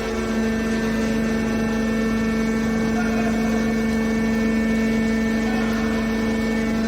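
Hydraulic scrap metal baler's power unit running with a steady hum at one constant pitch.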